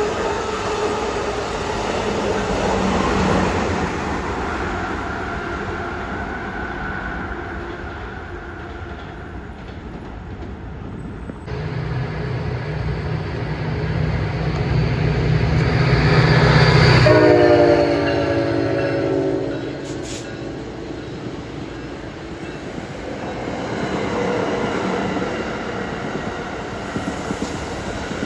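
A train passing on the line, its running noise swelling as it approaches. A horn chord blows for about two seconds at the loudest point, a little past the middle.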